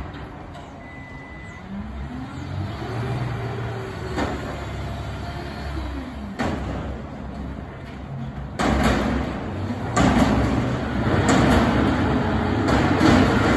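Garbage truck engine running and revving up, then easing back down, with a few sharp clanks. From about two-thirds of the way in, a louder, steady rushing noise with more clanks takes over.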